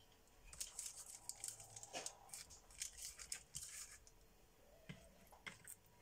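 Faint crinkling of baking parchment as pieces of marinated sea bass are shifted on it by hand, in scattered short crackles, most of them in the first few seconds.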